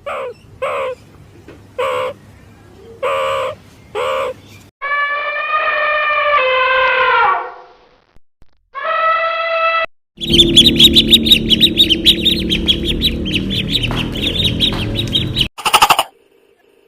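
A run of different animal calls one after another: short pitched calls about once a second, then two longer drawn-out calls, the first falling in pitch at its end, then about five seconds of rapid bird chirping.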